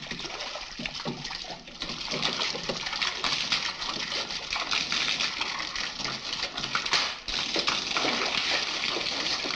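Water spraying from a leaking pipe and splashing into a bathtub, a steady hiss with irregular splashes.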